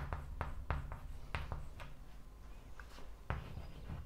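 Chalk on a chalkboard as words are written: a run of short, irregular taps and scrapes, several a second, with a brief lull partway through.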